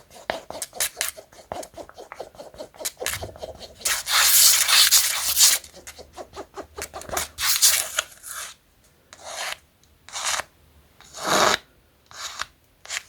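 Glue mixed with liquid soap and colouring being stirred in a cup: quick scraping strokes of the stirrer against the cup, about four a second, then a louder, longer rub about four seconds in and a few separate scrapes after.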